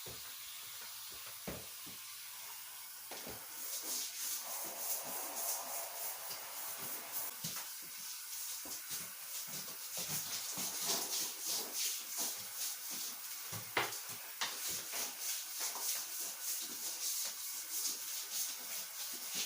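Stiff brush scrubbing a surface in quick repeated strokes, starting about three seconds in after a few light knocks.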